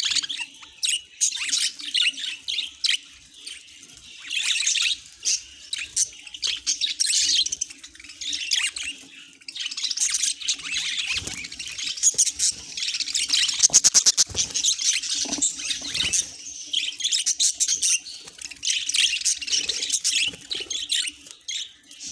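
Pet budgerigars chattering, with a continuous stream of high chirps and warbles. A little past the middle there is a quick run of sharp clicks.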